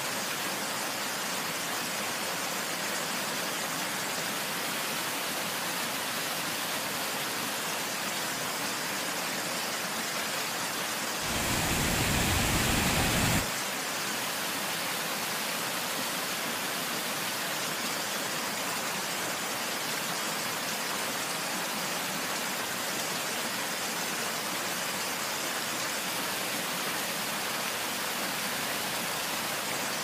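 Steady rush of a waterfall pouring over rock, an even hiss of falling water. Near the middle it grows louder with a low rumble for about two seconds, then cuts off suddenly.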